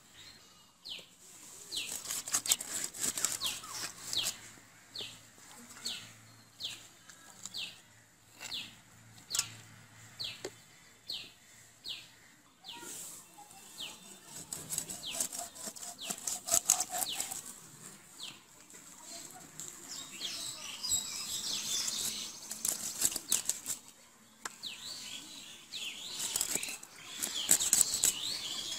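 A whole fish being scaled by scraping it against an upright boti blade, in regular strokes about two a second for the first dozen seconds. Then irregular scraping and cutting as the fish is sliced into steaks on the blade, loudest near the end.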